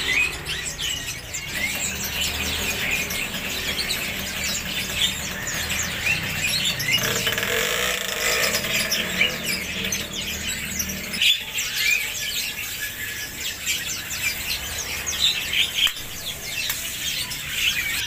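A chorus of many caged songbirds chirping and calling at once, with rapid short chirps overlapping throughout. A low rumble sits underneath for the first half and fades out about eleven seconds in.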